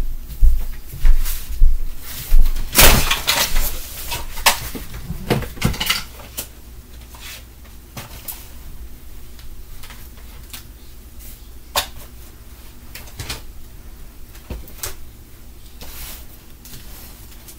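A run of hard knocks and clattering thumps, about two a second, then scattered light clicks after about six seconds.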